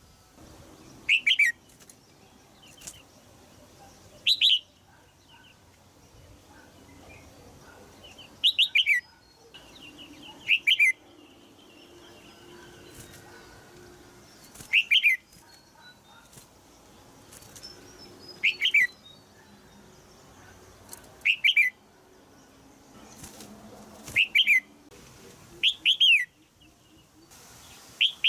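Red-whiskered bulbul giving short, sharp chirping calls, each a quick double note falling in pitch, repeated about every two to four seconds. These are the 'jiak jiak' calls of a caged female, used to stimulate young males to sing.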